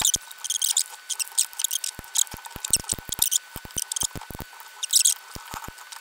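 Hard plastic case of a printer's 24 V power supply being pried at along its clipped seam: short scratchy scrapes of plastic on plastic and tool, with many sharp clicks from the snap-fit clips.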